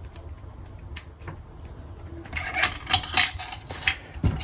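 Light clicks and clatters of small metal parts being handled at an electric scooter hub motor as the brake-disc spacer is fitted onto it, with a few louder clacks in the second half.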